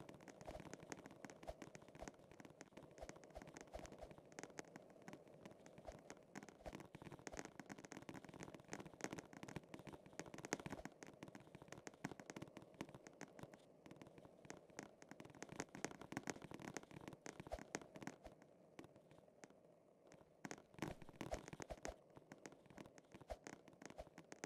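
Near silence, with faint scattered clicks and crackles.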